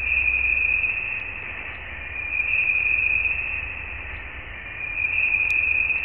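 Voyager 1 space recording played back as sound: a steady hiss with a high ringing band that swells and fades three times, over a low rumble. Scientists attribute this hum to plasma, ionised gas, beyond the solar system.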